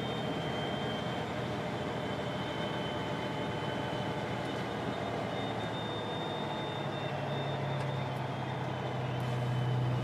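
Truck's diesel engine running steadily, heard from inside the cab, mixed with road and tyre noise. A low engine drone grows louder about seven seconds in.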